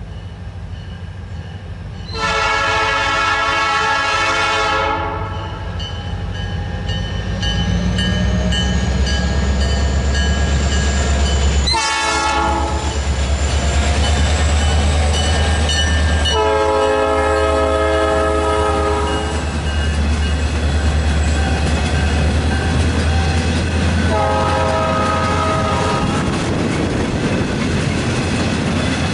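A Norfolk Southern freight train's diesel locomotives pass close by, sounding the horn four times: long blasts about two seconds in and again past the middle, a brief one between them and a shorter one near the end. Under the horn a steady low engine and rail rumble builds as the locomotives come up and carries on as the freight cars roll past.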